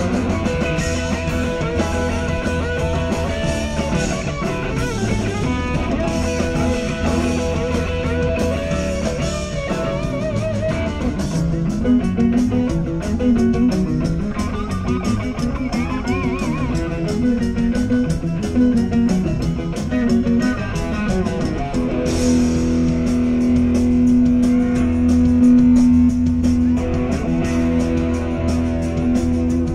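Rock band playing an instrumental jam live: electric guitar lead with bending notes over bass guitar and drum kit, settling into a held chord for the last third.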